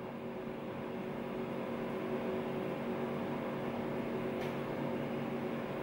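Steady mechanical hum with a few fixed tones: the room tone of a small bathroom. There is a faint tick about four seconds in.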